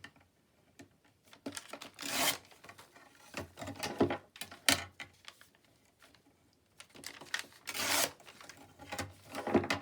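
Stiff, crunchy coffee-dyed paper crinkling and rustling as it is handled and scrunched, in a series of irregular short bursts.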